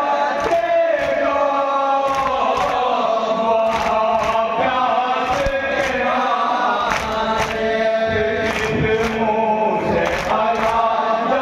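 A group of men chanting a marsiya lament in unison, amplified through a microphone, over rhythmic open-hand chest-beating (matam), with sharp slaps about twice a second.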